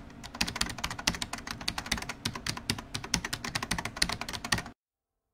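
Rapid computer keyboard typing: a fast, uneven run of sharp keystroke clicks that stops abruptly shortly before the end.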